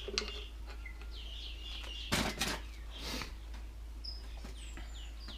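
Small birds chirping in the background, repeated short falling chirps, with a couple of sharp clatters about two seconds in and a smaller one about three seconds in.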